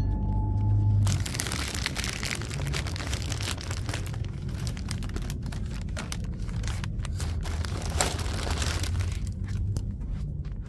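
Grocery bags rustling and crinkling as they are handled, from about a second in until near the end, over a steady low hum.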